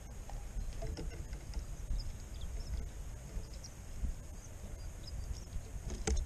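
Low wind rumble on the microphone with scattered small clicks as a European goldfinch pecks and husks sunflower seeds in a feeder tray, and a sharper click near the end.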